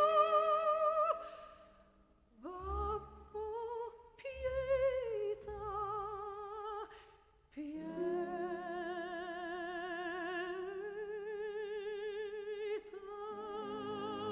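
Background music: a slow melody of long held notes with vibrato, pausing briefly between phrases.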